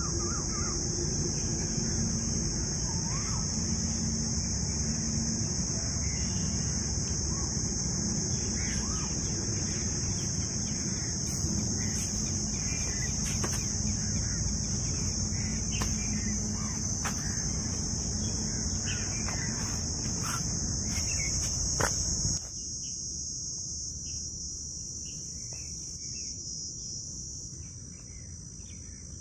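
A steady, high-pitched evening insect chorus, with faint bird chirps and scattered clicks over a low outdoor rumble. The rumble and the chirps drop away suddenly about three-quarters of the way through, leaving the insects.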